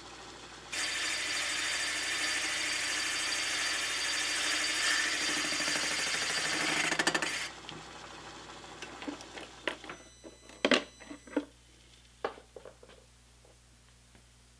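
Milling machine boring head with a high-speed steel boring bar cutting the aluminum intake manifold port. A steady hiss starts suddenly about a second in and cuts off after about seven seconds. A series of sharp clicks and knocks follows.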